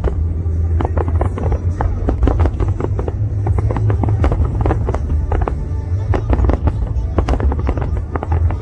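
Fireworks show bursting: a dense, irregular run of sharp crackling pops and bangs over a continuous deep rumble.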